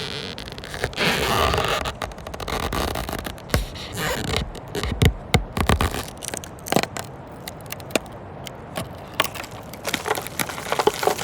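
Wood crunching and cracking: a dense crunching burst about a second in, then a run of separate sharp cracks and snaps of breaking wood.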